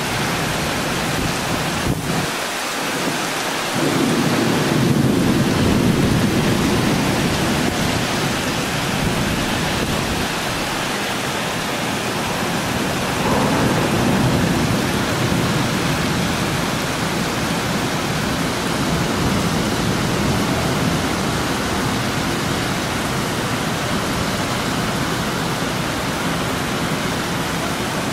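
Heavy thunderstorm rain hissing steadily, with rolls of thunder rumbling about four seconds in and again around thirteen seconds in.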